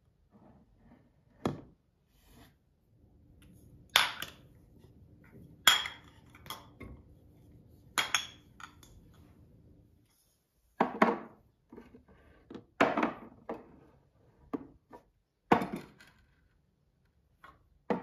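Glass spice jars with metal lids being set down one after another on a cabinet shelf: a series of sharp clinks and knocks, about nine, one to three seconds apart.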